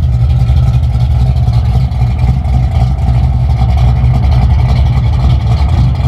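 Drag-race station wagon on slicks running at a loud, steady low idle with an uneven pulse as it rolls away slowly.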